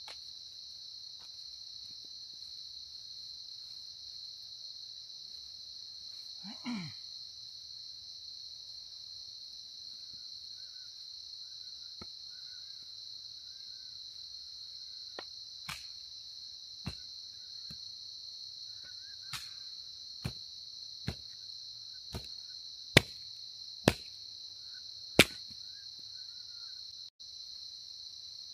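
Sharp knocks of a chopping tool striking firewood as it is split into kindling, scattered through the second half and growing louder, the three loudest near the end. Steady high chirring of crickets runs underneath.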